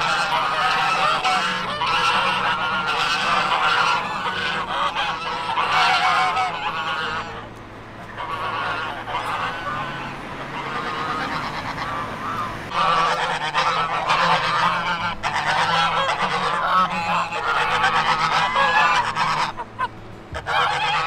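A flock of domestic geese honking, many calls overlapping in a continuous din that thins for a few seconds around the middle and then picks up again.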